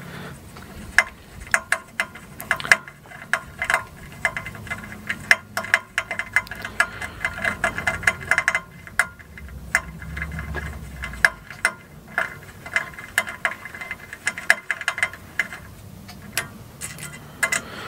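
Small hand bit screwdriver turning a screw into an aluminium frame, with many quick, irregular clicks from the tool and the screw.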